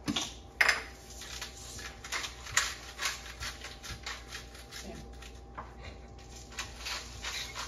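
Irregular light taps and clicks of food being handled and prepared on a kitchen counter, with a couple of sharper knocks about half a second in.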